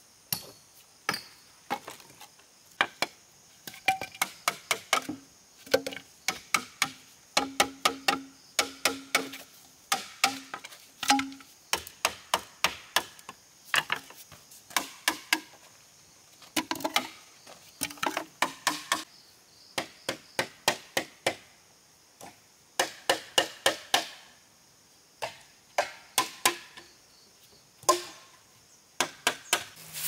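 A hatchet striking bamboo poles: bursts of quick, sharp knocks with short pauses between them, some knocks ringing hollow.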